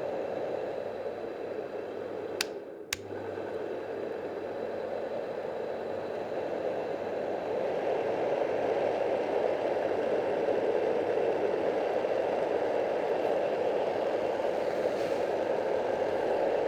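Yogasleep Dohm white noise machine's fan running as a steady rushing noise, with the rattle that this unit makes even on a cork mat. Two sharp clicks about half a second apart come a couple of seconds in, the sound dipping briefly between them; after that it runs a little louder.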